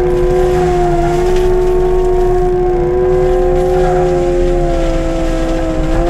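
Skid steer with a forestry mulcher head running under power. It makes a loud, steady whine that shifts only a little in pitch, over a low engine rumble, heard from inside the cab.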